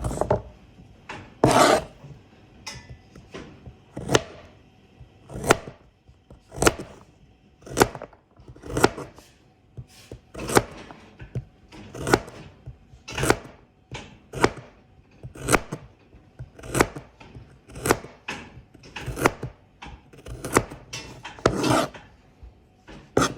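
Knife chopping carrots on a cutting board: a series of crisp chops at an uneven pace of about one a second, a few of them with a longer crunch as the blade goes through.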